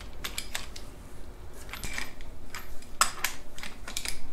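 Socket ratchet clicking in several short runs as cylinder head nuts are turned down onto their studs until they just make contact, with light metal clinks of the socket on the nuts.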